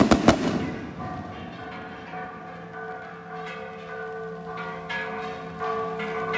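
A quick cluster of sharp bangs from skyrockets bursting overhead in the first half second, then church bells ringing a festive peal, several pitches struck in turn and ringing on over each other.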